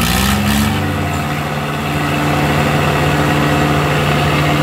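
Diesel tractor engine, exhausting through a tall vertical stack, revving up at the start and then held at steady high revs.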